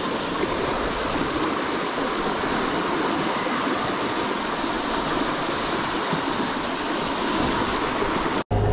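River in spate rushing steadily, a continuous even sound of running water, cut off abruptly near the end, where a different steady low hum begins.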